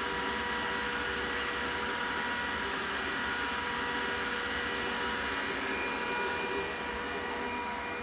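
Glowforge Plus laser cutter running: a steady whir of its cooling fans together with an external exhaust fan, with several steady whining tones over the rushing air. It gets a touch quieter about two-thirds of the way through.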